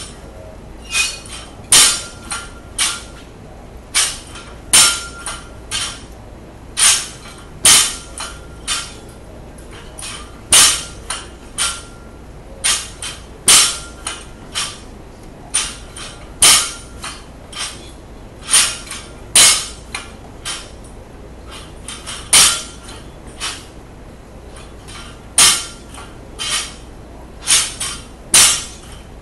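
Snatch barbell loaded with 10-pound bumper plates and 5-pound plates crashing onto a rubber lifting platform after each rep, about once every three seconds. Each hit is a sharp bang followed by smaller bounces and plate rattles, and some hits leave a short metallic ring.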